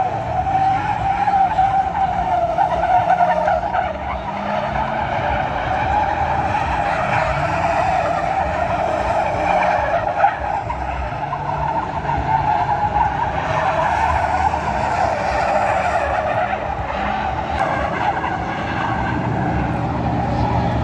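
A car doing donuts: its tyres squeal continuously, with the engine running underneath.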